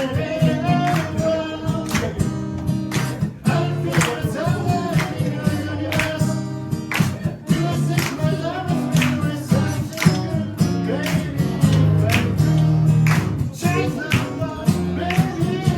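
Acoustic guitar strummed in a steady rhythm under a solo voice singing a song.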